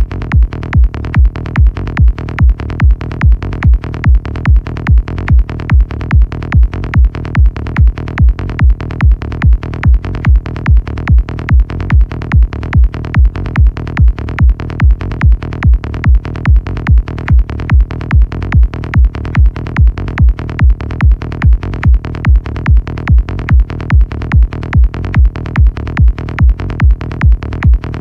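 Electronic trance music with a steady, heavy beat of about two pulses a second.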